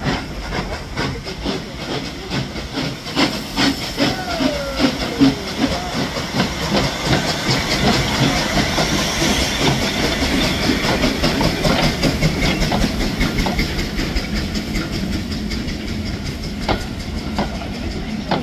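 Steam locomotive working, with a steady run of exhaust beats over steam hissing. The sound grows louder toward the middle and eases a little near the end.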